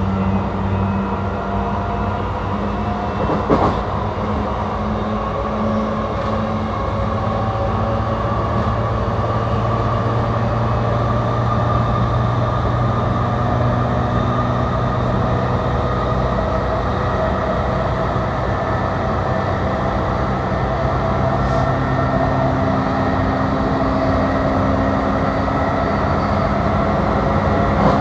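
E235-series electric commuter train running, heard from inside the passenger car: a steady rumble of wheels on rail with a steady traction-motor hum whose pitch changes about three-quarters of the way through. There is a single sharp knock about three and a half seconds in.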